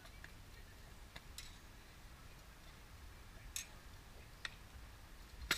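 Distant sharp clacks of rattan swords striking shields and armour, about five blows spaced irregularly, the loudest near the end.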